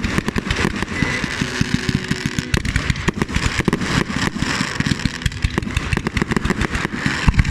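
Fireworks display going off in a rapid, continuous barrage of bangs and crackles, several reports a second, with no pause.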